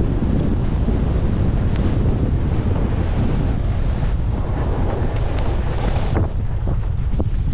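Wind buffeting an action camera's microphone as a skier goes downhill, with the hiss of skis running through chopped-up snow, which swells about five seconds in.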